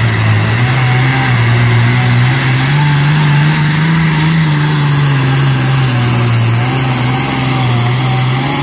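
A pulling truck or tractor engine run hard at high revs for the whole stretch, its pitch wavering slowly up and down as it works under the load of the pull.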